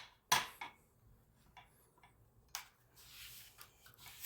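A few sharp knocks and clicks as a vacuum cleaner motor is struck and handled to jolt its seized carbon brushes. The loudest knock comes about a third of a second in, another soon after, and one more about two and a half seconds in, with no motor hum: the motor does not start.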